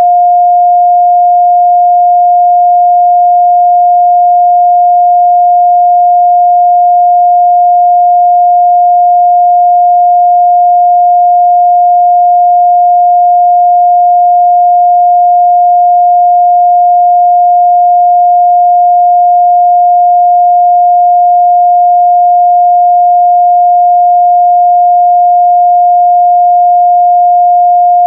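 Steady, loud 708 Hz pure sine-wave test tone, a single unwavering pitch with no breaks.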